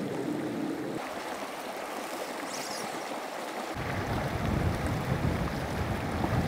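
Lakeside ambience: steady wind over rippling water, with small waves lapping. From about four seconds in, wind rumbles on the microphone.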